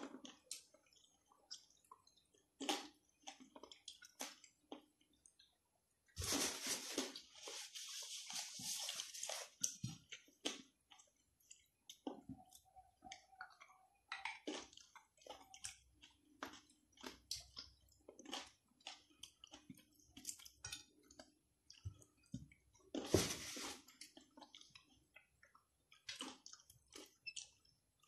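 A person eating pizzutella table grapes: soft, wet chewing and mouth sounds with many small clicks throughout. There are two longer noisy bursts, one of about four seconds about six seconds in and a short one a little before the end.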